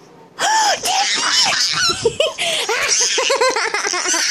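Toddler laughing in a quick run of short giggles, starting about half a second in.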